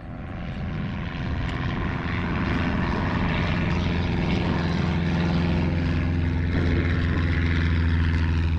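Small floatplane's propeller engine flying overhead: a steady low engine note that swells in over the first two seconds, then holds.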